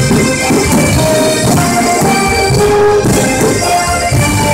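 Loud music: a melody of held notes over a steady band accompaniment.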